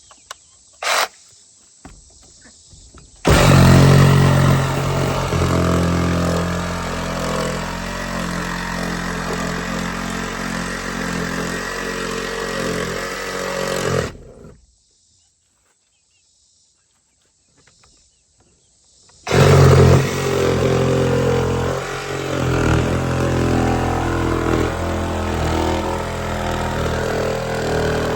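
Power saw cutting out the opening for a chicken door in the coop wall, running steadily through two long cuts with a pause of a few seconds between them. A short click comes about a second in.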